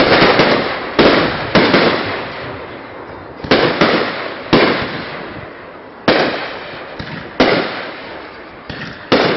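Aerial fireworks shells bursting: about ten sharp bangs at uneven intervals, several in quick pairs, each fading away over a second or so.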